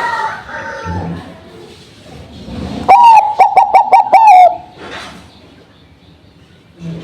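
Zebra dove (Bangkok-type perkutut) cooing: one loud phrase of about six quick dipping notes, starting about three seconds in and lasting about a second and a half, after a fainter call at the start.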